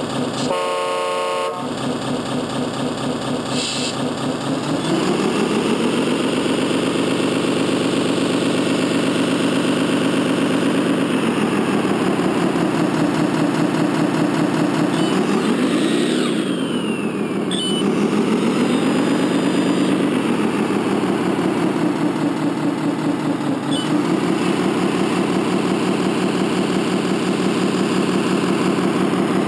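Servonaut SMX sound module playing a simulated Iveco turbo-diesel truck sound through the small speaker on an RC truck. It gives a short horn blast about a second in, then the engine sound revs up and holds, drops back and climbs again several times, with a falling whistle about halfway through.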